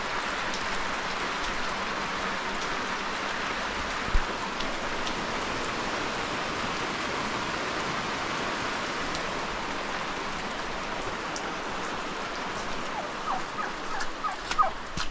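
Steady rain falling on wet ground and stone, with a single thump about four seconds in. Near the end a domestic turkey gives a run of short, high calls.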